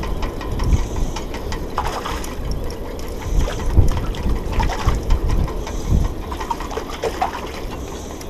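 Wind noise gusting on the microphone over lapping harbour water, with a few short high squeaks.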